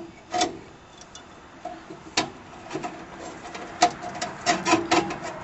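Scattered small clicks, taps and knocks of metal parts being handled as a furnace's hot-surface ignitor is tilted and wiggled into its mounting bracket. The sharpest knocks come about two and four seconds in.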